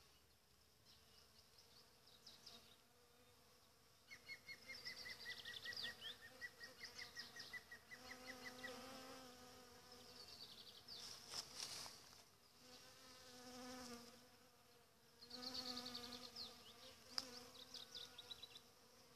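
Faint buzzing of honeybees working apricot blossom, the hum swelling and fading in several passes as bees fly close. Bursts of rapid, high chirping come and go over it and are the loudest sounds.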